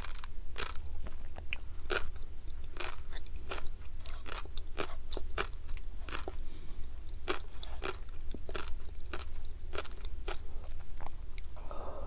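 Close-miked chewing of flying fish roe (tobiko and masago), the eggs popping under the teeth in quick, irregular crisp clicks, several a second, over a low steady hum.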